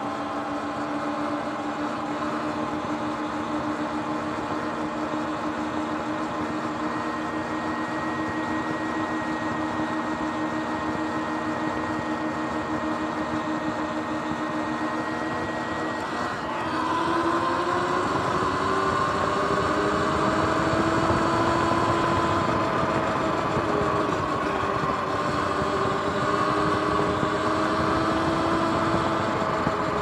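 Sur-Ron X electric dirt bike's motor and drive whining steadily while cruising, over road and wind noise. About halfway through the whine rises in pitch and gets louder as the bike speeds up, its pitch wavering with the throttle.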